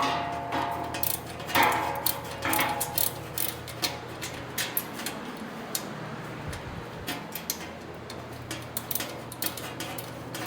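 Irregular series of sharp metallic clicks as bolts are tightened with a hand tool on a metal patio swivel chair frame.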